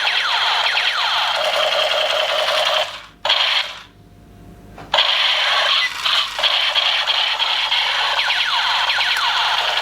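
Battery-operated toy gun's electronic sound effect playing loudly, a harsh high-pitched looping noise with sweeping tones. It stops briefly twice about three and four seconds in, as if the trigger is let go, then carries on.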